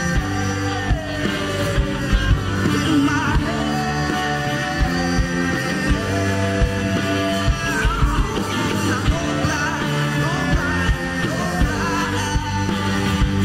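Rock band playing live: electric guitars, electric bass, drum kit and keyboard, with singing over them.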